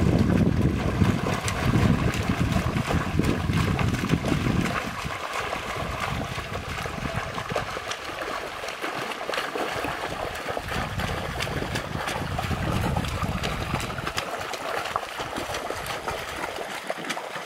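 Several people stomping and wading through a shallow stream, their feet splashing water over a running-water background. The splashing is heaviest in the first few seconds and again about two-thirds of the way through.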